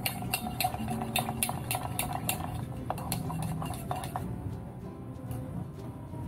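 Long bar spoon stirring in a stainless steel mixing tin, clinking against the metal wall about three times a second; the stirring stops about four seconds in.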